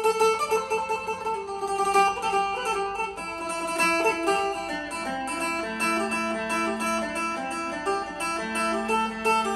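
A Thai phin, a plucked lute, being played: a quick picked melody over a steady drone from an open string.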